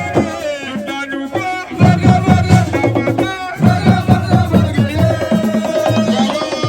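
Music with fast, steady drumming under melodic lines.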